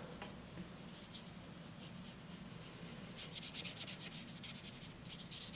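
Watercolour brush loaded with water stroking quickly across textured watercolour paper: a faint, scratchy rubbing that becomes a rapid run of short strokes about three seconds in.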